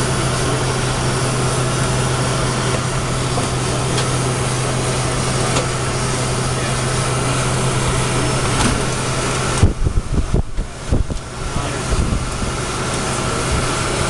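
Steady cockpit noise in a taxiing KC-135 tanker: jet engines and air conditioning running, with a strong low hum. The low hum cuts off suddenly a little over halfway through, and a few low thumps and knocks follow.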